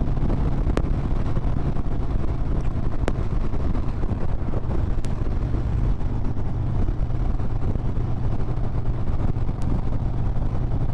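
Harley-Davidson Road Glide V-twin engine running steadily at cruising speed, with wind buffeting the microphone.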